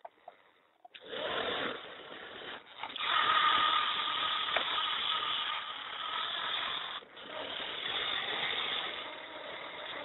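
Small DC gear motors of a homemade RC car running with a steady whirring noise. They start about a second in and cut out briefly twice.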